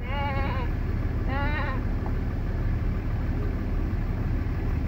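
A goat bleating twice, two short wavering calls about a second apart, over the steady low rumble of the vehicle's engine.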